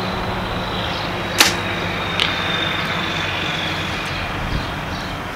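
Compound bow shot: a sharp snap of the string on release about a second and a half in, then a fainter smack of the arrow striking the target at 60 yards just under a second later. A steady low vehicle hum runs underneath.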